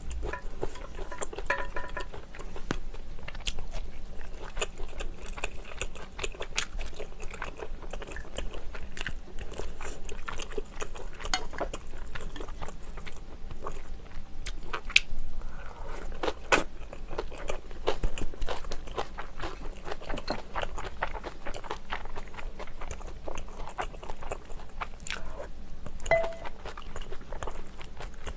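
Close-miked eating sounds: biting and chewing of kimchi and a grilled tteok-galbi meat patty, with many small clicks and taps of chopsticks and a spoon against the dishes.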